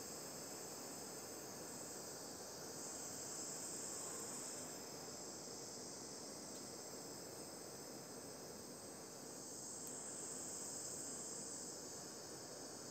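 Handheld gas torch hissing steadily as its flame melts a plastic doll. The hiss swells twice, a few seconds in and again near the end.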